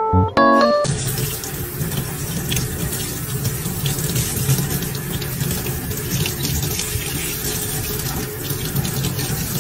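A few piano notes, then from about a second in a faucet running steadily into a sink as a kitten is held under the stream.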